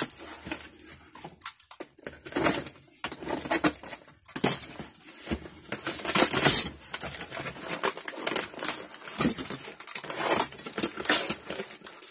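Packaging being handled and unwrapped: irregular bursts of rustling and crinkling, with short pauses between them.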